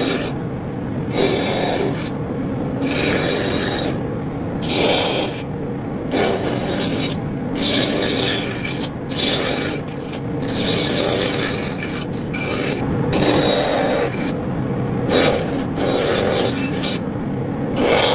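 Repeated rough scraping strokes on wood, about one stroke a second, each with a bright hiss.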